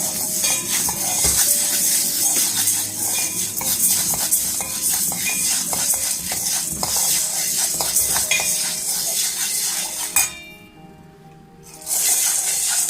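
A spoon stirring dry mung beans as they roast in a small metal pan, scraping and clinking against the pan with many small clicks. The sound drops away for over a second near the end, then resumes.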